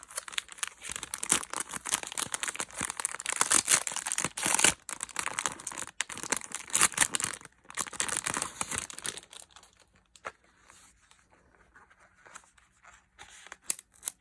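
Packaging being torn open and crinkled: a dense crackling rustle for about nine seconds, then only faint handling clicks.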